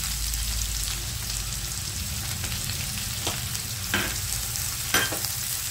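Freshly added chopped onion sizzling steadily in hot mustard oil in a frying pan, stirred with a wooden spatula that knocks against the pan three times in the second half.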